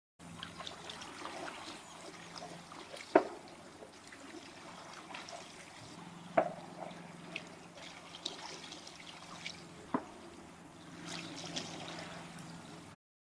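Water trickling and dripping in many small drops, with three louder drops about three, six and ten seconds in. It cuts off suddenly near the end.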